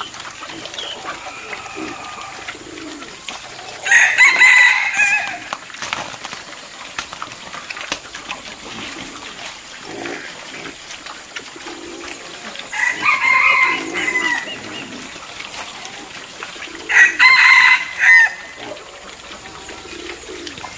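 A rooster crows three times, each crow lasting about a second and a half: about four seconds in, again around thirteen seconds, and once more near seventeen seconds.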